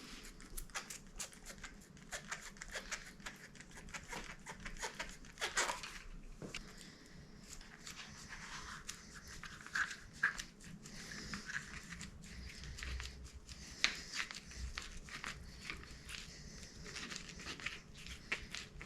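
ProTaper Pillow Top rubber grip being twisted and pushed onto a handlebar with soapy water: faint rubbing, squeaks of wet rubber, and many small clicks and taps.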